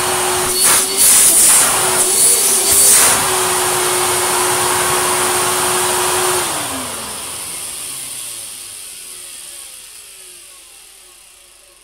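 Goblin Aquavac 620 wet-and-dry vacuum cleaner, fitted with a motor from a Vax New Wave 1100, running at full speed with a steady whine and a few louder surges in the first three seconds. About six seconds in it is switched off and the motor winds down, its whine falling in pitch and fading away.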